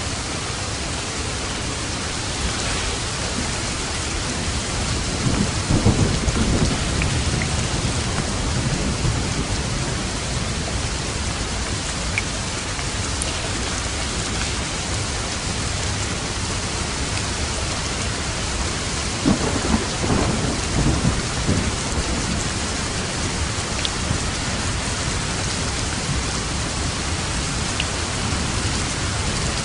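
Steady heavy rain hissing, with light thunder rumbling low twice, about five seconds in and again near two-thirds of the way through.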